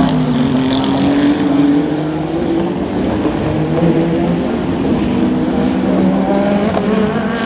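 Endurance race car engine running hard at speed, its pitch rising and falling over a few seconds.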